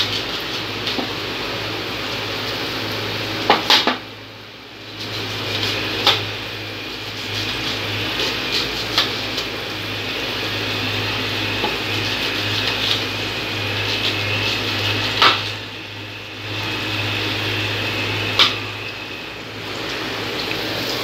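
A kitchen knife cutting a red onion on a steel plate, the blade striking the metal in a few sharp clicks, over a steady hiss and low hum.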